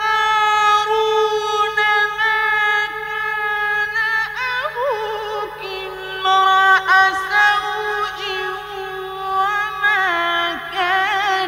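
A man's voice reciting the Qur'an in the slow, melodic mujawwad style, holding long notes that he ornaments with quick wavering turns and glides.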